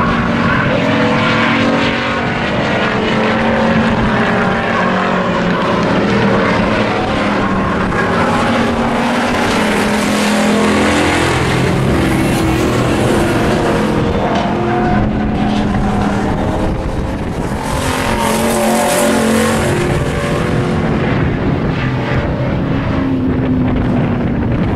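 Engines of several hobby-class pickup race trucks running at speed around an oval track, their pitch rising and falling as they pass and as they lift and accelerate.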